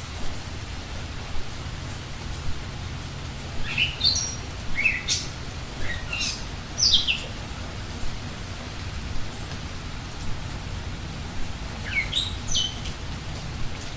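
Steady rain with small birds chirping over it. The chirps are short, quick sweeps in pitch that come in flurries, one a few seconds in and another near the end.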